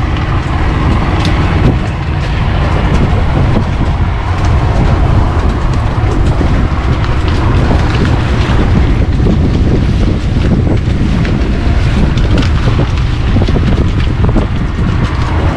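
Small motor launch under way: a steady low engine rumble and water noise, with heavy wind buffeting the microphone, a little louder after about two seconds in.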